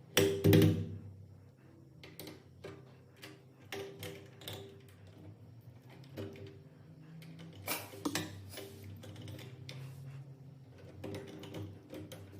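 Irregular clicks and knocks of hardware being worked on a door handle, the loudest about half a second in, over quiet background music.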